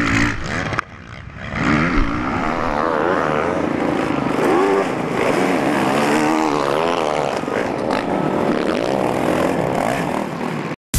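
Off-road motocross motorcycles racing, engines revving hard. The pitch keeps climbing and falling with throttle and gear changes, several bikes overlapping. The sound dips briefly about a second in and cuts off just before the end.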